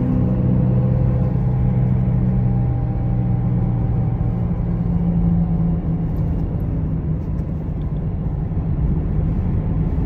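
Car driving steadily along a road: a constant low engine hum over tyre and road rumble.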